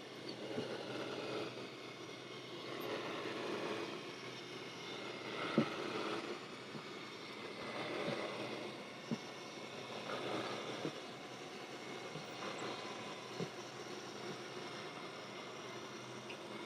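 RV slide-out room extending under power: a steady mechanical drone, with a few sharp clicks scattered through it, as the slide topper awning unrolls above it.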